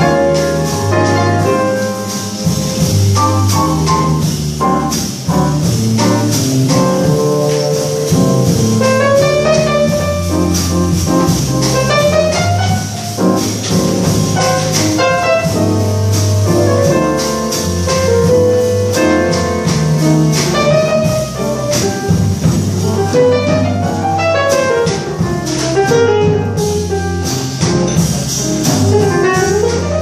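Live small jazz group of grand piano, upright double bass and drum kit playing an instrumental passage of a slow bolero, with a melody line that slides up and down in pitch over the chords.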